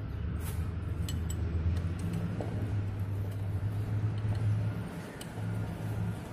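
A low, steady engine hum that dips briefly about five seconds in, with a few light metallic clinks from the steel parts of a hydraulic PTO gear pump being handled during assembly.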